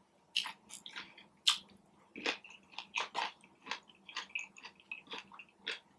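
A person chewing and biting food with the mouth close to the microphone: irregular short smacks and clicks, a dozen or so spread unevenly.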